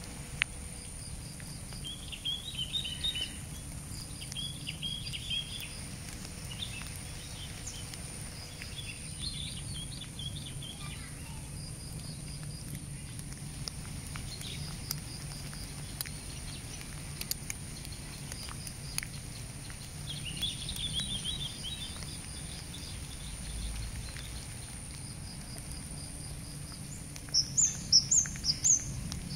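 Outdoor ambience with small birds chirping in short clusters every few seconds over a steady low background noise and a faint steady high insect tone. The loudest moment is a quick run of higher chirps near the end.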